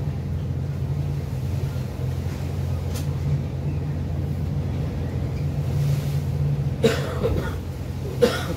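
Car ferry's diesel engines running with a steady low drone. Near the end come two sudden loud thumps about a second and a half apart, which sound like waves slapping the hull in rough seas.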